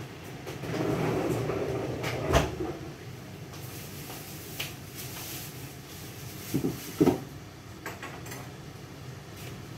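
Kitchen clatter while cooking: about two seconds of noisy handling with a sharp knock, then a pair of knocks and a few lighter clicks over a steady background hum.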